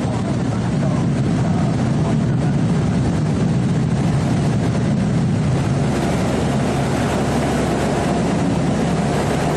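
Steady, unbroken engine noise of the aircraft carrying the camera during aerial filming.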